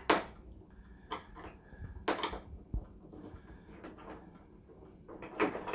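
A few sharp clicks and knocks with quiet between: handling screws and the plastic back cover of an LCD TV as it is being taken apart.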